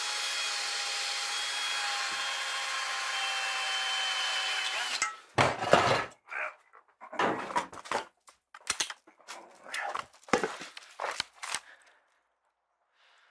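Cordless drill motor running steadily at one pitch for about five seconds, then stopping. It is followed by a run of irregular clunks, knocks and scrapes as an empty steel gas bottle is handled and carried.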